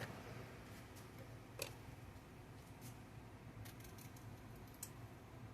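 Faint scattered clicks and taps, about five spread over several seconds, over a low steady hum.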